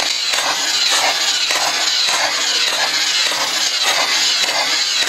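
Electric fully automatic SCAR-style toy gel blaster, which shoots crystal water-gel beads, firing one continuous rapid burst with the trigger held down.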